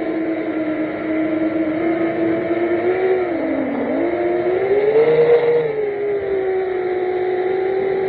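Reverb-frame FPV quadcopter's motors and propellers whining as recorded by its onboard camera, the pitch following the throttle. It dips about three and a half seconds in, then climbs to a high, louder whine about five seconds in before settling back to a steady cruise.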